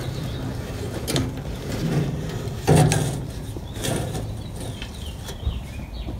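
Scrapes and knocks of hand garden work in soil, a few seconds apart, the loudest with a dull thud about three seconds in. Small birds chirp faintly in the background.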